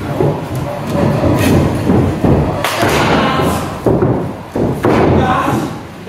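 Several heavy thuds and slams of wrestlers' bodies hitting the pro-wrestling ring mat, echoing in a hall, with voices calling out.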